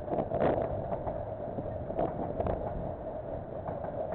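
Freight train of container wagons rolling past, a steady rumble with several sharp clunks from the wheels on the rails.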